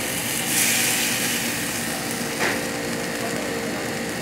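A metal spoon scraping a frying pan, with one short clink about halfway through as the food is moved, over a steady machine hum and rush.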